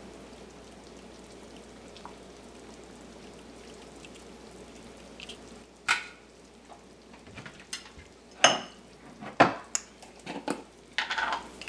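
Chicken curry simmering in a pot with a faint steady sizzle. In the second half a metal spoon knocks and scrapes against the pot about six times as a spoonful is taken out to taste for salt.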